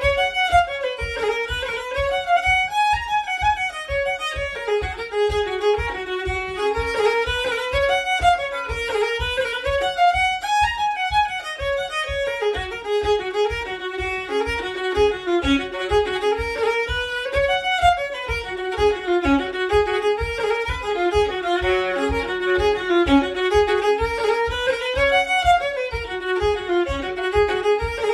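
Solo fiddle playing a lively Irish jig, a quick running melody of bowed notes rising and falling in repeated phrases, with a steady low thump keeping the beat underneath.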